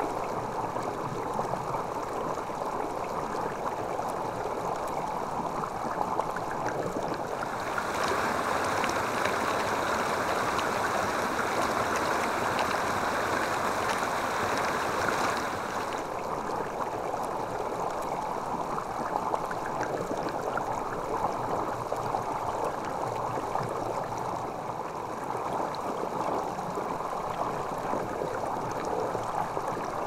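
Mountain stream water running and gurgling over a rocky bed, a steady rush. About a quarter of the way in it turns louder and brighter for several seconds, then settles back to a softer flow.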